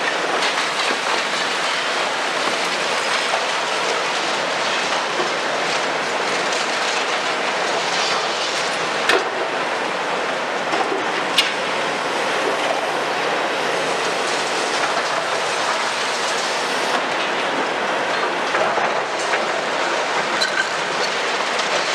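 CAT 326F and Hitachi excavators working a pile of demolition rubble: a steady clatter and scrape of broken concrete and debris under the bucket and grab, with two sharp cracks about nine and eleven seconds in.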